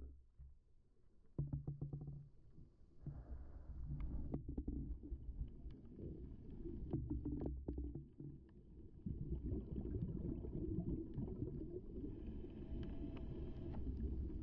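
Muffled underwater rumble heard through an action camera's waterproof housing, the water moving against the housing as it swims, with scattered small clicks and knocks. It grows louder about a second and a half in.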